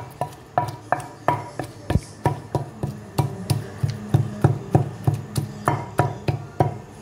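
Wooden pestle pounding green chutney in a clay mortar (kundi): a regular knocking about three times a second, each stroke a dull thud of wood on wet herb paste against terracotta.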